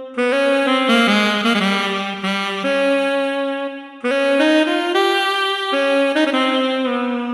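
Yamaha SHS-500 Sonogenic keytar playing an Indian-style melody on a saxophone-like wind voice with added reverb: stepping held notes in two phrases, broken briefly about four seconds in.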